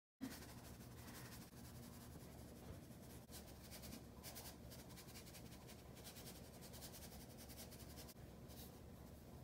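Faint, scratchy shushing in short bursts as cinnamon sugar is shaken from a plastic container onto rolled-out dough, over a low steady room hum.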